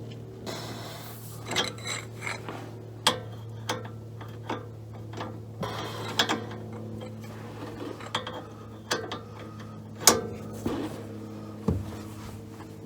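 Wrench turning the bolt of a ball joint separator pressed onto a tie rod end, under strain: a dozen or so sharp metallic clicks and clanks at irregular intervals, the loudest about ten seconds in, over a steady low hum.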